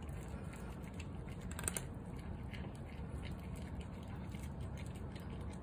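Two cats crunching dry kibble: scattered small crunchy clicks, with one sharper click about a second and a half in, over a steady low background rumble.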